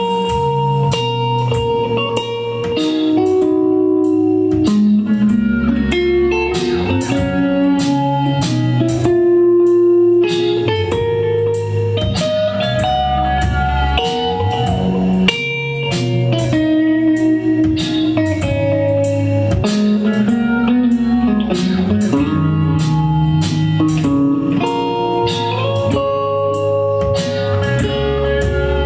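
Blues-style instrumental music led by electric guitar, with notes that bend and slide, over a walking low bass line and a steady beat of drum strikes.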